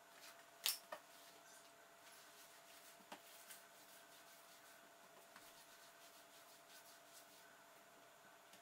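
Near silence: faint room tone with a steady hum and a few light taps on a countertop, the sharpest just under a second in, as a plastic dough scraper cuts through a ball of yeast dough.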